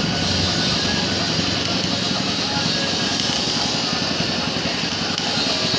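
Stick-welding arc crackling and hissing steadily as a rod electrode welds the butt joint of a sawmill bandsaw blade held in a clamping jig.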